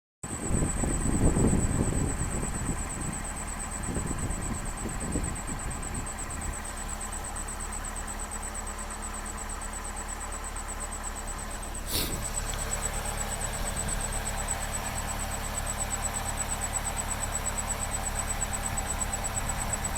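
Car engine starting and then idling, louder for the first couple of seconds before it settles, with a steady high-pitched whistle over it from the start. There is a single sharp click about twelve seconds in.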